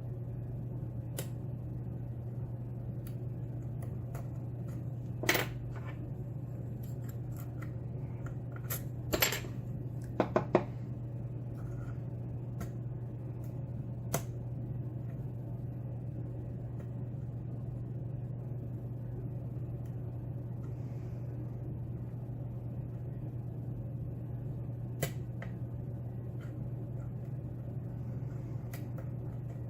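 Lock picking in a Schlage pin-tumbler lock: sparse small metallic clicks and taps from the pick and tension wrench working the pins, including a quick run of three clicks about ten seconds in, over a steady low hum.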